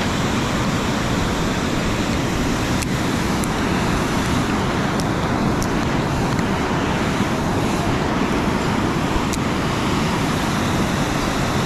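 Steady rushing noise of wind and fast-moving river water, with a few faint clicks.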